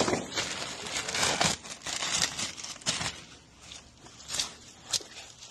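Irregular rustling and scraping handling noise, with several sharp clicks, loudest in the first three seconds and then dying down.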